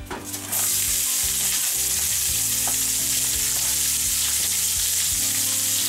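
Sliced onions and bell peppers dropped into hot olive oil in a cast-iron skillet: they hit the oil with a loud sizzle about half a second in that carries on steadily as they fry.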